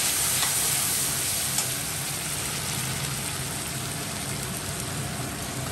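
Ground mustard-poppy seed and green chili paste sizzling steadily in hot oil in a kadai as a spatula stirs it, gradually easing. A single small click about one and a half seconds in.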